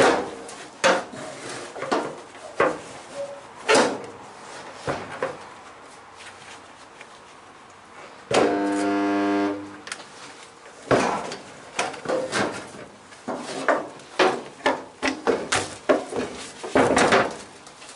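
Resistance spot welder giving one steady buzz for about a second and a half, a little before the middle, as it fuses a spot weld in the steel body panels of a classic Mini shell. Around it come scattered knocks and clanks, thickest in the second half, as the welder's arms are set against the panels.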